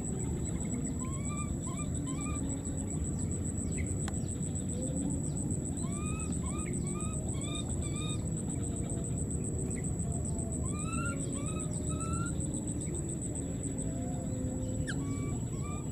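Baby macaques giving short, rising coo calls in runs of three to five, repeated several times, over a steady high-pitched insect whine.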